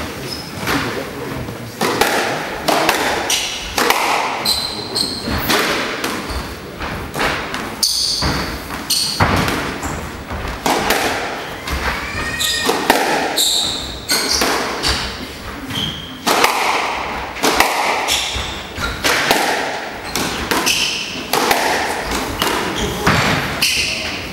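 A squash rally in a large hall: a fast, irregular run of sharp hits as the ball is struck by racquets and strikes the court walls, with brief high shoe squeaks on the wooden floor.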